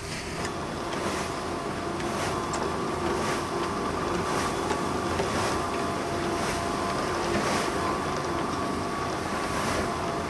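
A Soviet-era, Ukrainian-built salt-harvesting machine running as it cuts wet salt crust from a brine lagoon. It makes a steady mechanical drone with a faint hum, and a swishing sound comes round about once a second.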